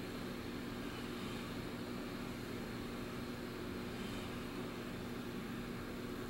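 Steady low hum with an even hiss, holding level throughout, from a machine or appliance running in the background; no ticking or clicks stand out.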